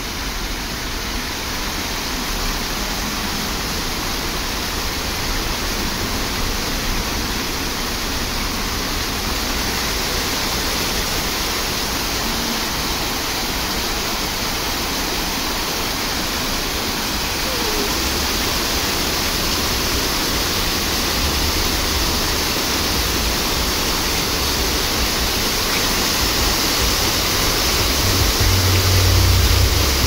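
Row of fountain jets spraying and splashing into a shallow pool: a steady rush of water that grows slowly louder as the jets rise, with a low rumble near the end.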